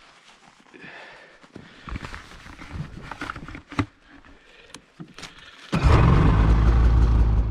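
Faint clicks and knocks of handling, then about six seconds in a snowmobile engine comes in suddenly, loud and steady.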